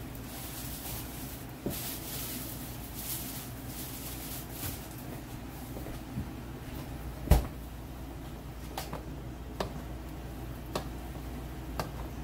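Kitchen knocks and clicks: one loud knock about seven seconds in, then a few light clicks and taps, over a steady low hum.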